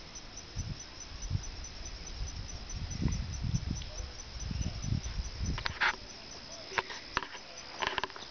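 Outdoor ambience: a faint steady insect trill over a low rumble of wind on the microphone. A few sharp clicks and rustles come in the last few seconds.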